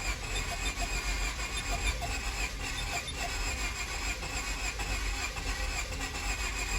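A 2002 Honda Civic's starter cranking the engine steadily with an even rhythm. The engine turns over but does not fire.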